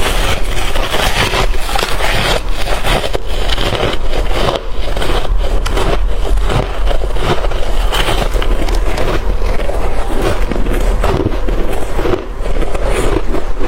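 Close-miked chewing of shaved ice and freezer frost: a dense, continuous run of crisp crunches and crackles.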